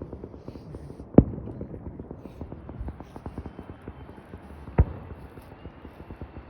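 Aerial fireworks going off: two sharp, loud booms about three and a half seconds apart, with many faint pops and crackles in between.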